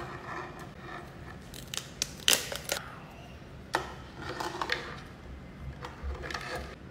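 Cooked crab shell being cracked and pried apart by hand: sharp cracks and snaps, the loudest about two seconds in, with scraping and crackling of shell between them.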